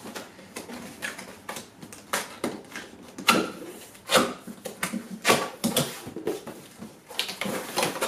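A cardboard box being handled and opened by hand: a run of irregular taps, scrapes and knocks as the lid flaps are pulled open and cardboard inserts are moved.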